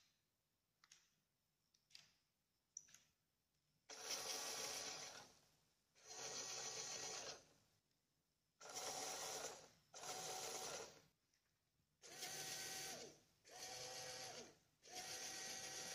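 A LEGO RC car's small electric motor and gear train whirring in seven short bursts of about a second each, some dropping in pitch as they spin down at the end. A few light clicks come before the first burst.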